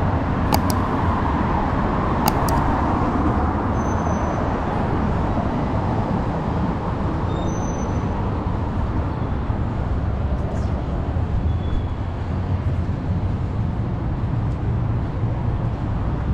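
Steady downtown street traffic: road vehicles running past as a constant low rumble and hiss. There are a couple of sharp clicks in the first few seconds.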